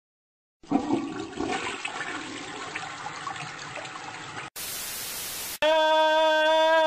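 A toilet flushing: a rush of water starts about half a second in and runs for about four seconds. Then comes about a second of even hiss like static, and then a loud, steady pitched tone.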